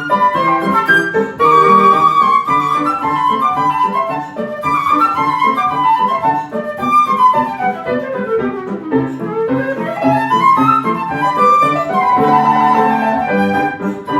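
Flute playing a fast galop over piano accompaniment, with quick runs of notes; in the middle a long scale run sweeps down and then climbs back up.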